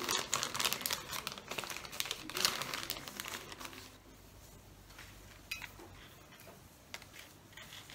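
Plastic zip bag crinkling as noodle nests are packed into it and the bag is handled. It dies down after about three and a half seconds to faint rustling with a few light taps.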